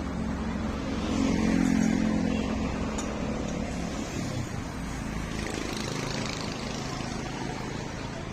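Engine running. It swells louder between about one and two and a half seconds in, then settles to a steadier, quieter note.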